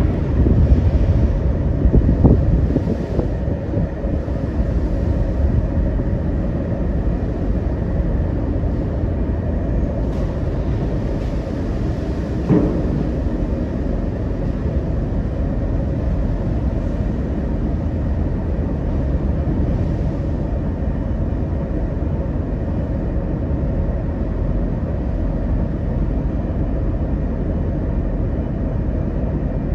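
Steady low rumble on board a ferry crossing rough seas, with a few knocks near the start and about twelve seconds in.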